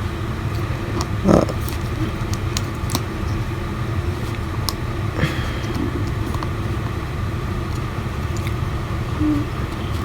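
Scattered small clicks and taps from handling a phone and its small parts during repair, over a steady low background rumble.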